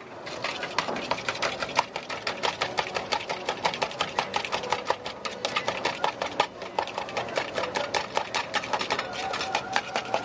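Egg and vegetable batter being beaten briskly in a red plastic cup, the utensil clicking against the cup in a quick, steady rhythm of about five or six strokes a second.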